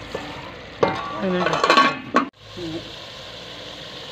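A ladle stirring cauliflower curry in a stainless-steel pot, scraping and clinking against the metal, loudest for about a second and a half in the first half. After a sudden break, the nearly done curry sizzles steadily as it fries in the pot.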